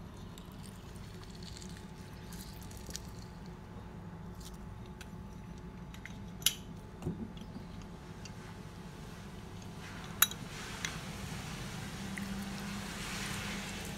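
A lime being crushed in a hand-held metal lime squeezer over a glass bowl: soft squishing and dripping of juice, with scattered small ticks and two sharp clicks, about six and ten seconds in.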